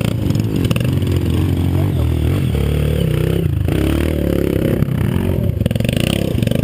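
Off-road dirt bike engines running and revving up and down in pitch as the bikes work along a steep dirt trail.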